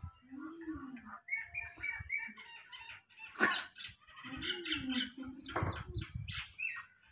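Small birds chirping in quick repeated calls, with two longer low calls that rise and fall, one near the start and one about halfway through.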